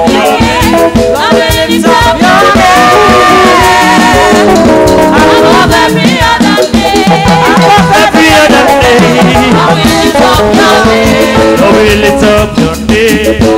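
Church praise-and-worship song: voices singing with instrumental backing and percussion.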